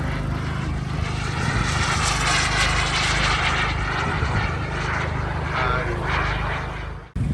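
Miniature gas-turbine jet engine of a large radio-controlled F-16 model flying past: a loud rushing jet whine that swells about two seconds in and then eases off. It cuts off suddenly near the end.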